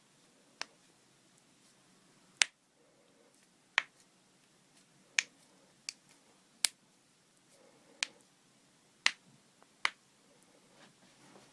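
About nine sharp joint cracks, spaced irregularly about a second apart, as the spine and joints are manipulated during chiropractic adjustments.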